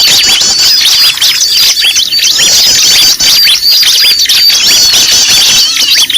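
A dense, loud tangle of many small birds' high chirps and squeaky calls, overlapping with no pause: a noisy bird lure recording of the kind used to draw wild birds in.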